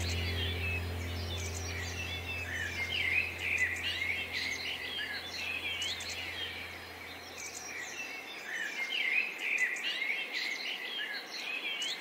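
A chorus of small birds chirping and twittering in many quick, overlapping calls. Under it the low drone of the ambient music fades out over the first seven or eight seconds, leaving only the birds.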